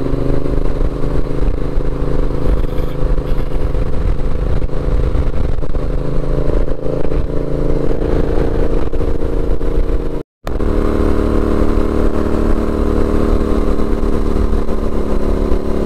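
Yamaha 689 cc parallel-twin motorcycle engine running at steady road revs while riding, with wind rumble on the camera microphone. The sound cuts out completely for a split second about ten seconds in.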